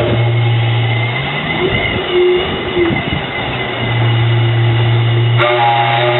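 Homemade steam whistle, its pitch set by an adjustable piston, blowing on steam with a steady hiss: a low, steady hoot that drops out for about two seconds in the middle, leaving the steam hiss and a brief higher note, then comes back. Higher tones join in near the end.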